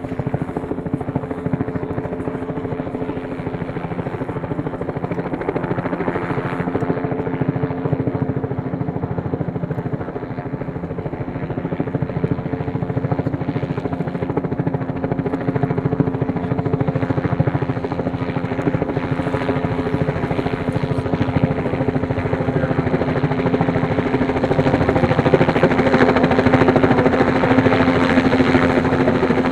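Helicopter flying overhead with a snowmobile slung beneath it on a long line, its rotor beating steadily over an even engine drone. It grows louder in the last few seconds as it comes closer.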